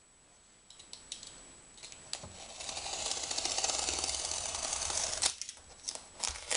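A few light clicks, then a utility knife slicing through the packing tape and cardboard of a parcel with a rough, scratchy sound for about three seconds, ending in a sharp click and a few small knocks.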